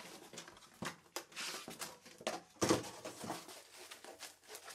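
Cardboard product box and its foam insert being handled as a unit is taken out: rustling and scraping, with a few sharp clicks about a second in and a louder knock about two and a half seconds in.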